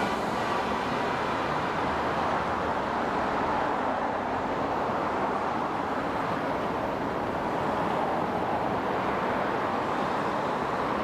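A railway train rolling past, giving a steady noise of wheels on rails.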